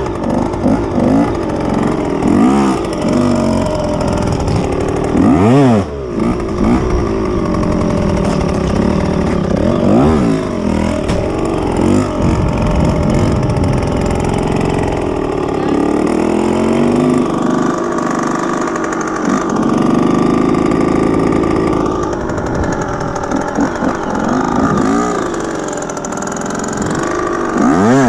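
Dirt bike engine running under way, its revs sweeping sharply up and down several times, with steadier stretches between the blips.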